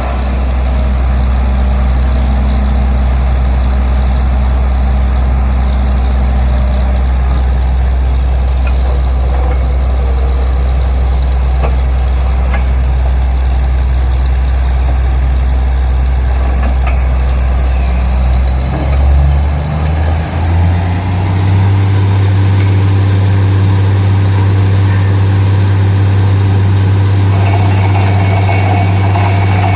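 Borewell drilling rig's engine running steadily at a low, even pitch, then speeding up about two-thirds of the way through and holding at the higher speed. A harsher, higher noise joins near the end.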